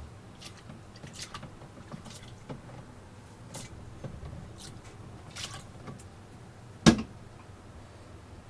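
Light handling clicks and ticks, with one sharp knock about seven seconds in, over a low steady hum.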